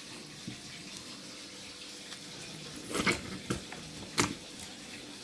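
Drinking glass pressed through tomato slices onto a wooden cutting board: a few sharp knocks and taps about three to four seconds in, over a steady faint hiss.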